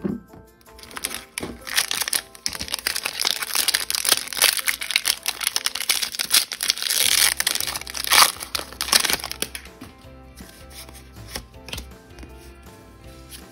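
Foil Pokémon booster pack crinkling in the hands and being torn open, with the sharpest tearing about seven to nine seconds in, then dying down. Background music plays throughout.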